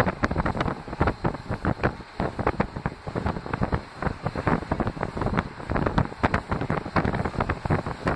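Wind buffeting the microphone aboard a moving train, in quick irregular gusts, over the train's running noise.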